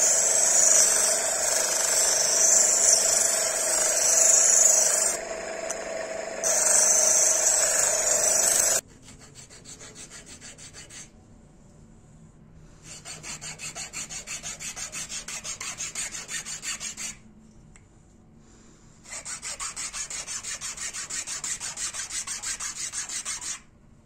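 Motor-driven sanding wheel running with a small stainless steel piece pressed against it, a loud steady hiss with a steady whine, briefly easing about five seconds in and stopping abruptly about nine seconds in. Then a horn handle piece is rubbed back and forth on a flat steel file in quick, even strokes, in runs with short pauses.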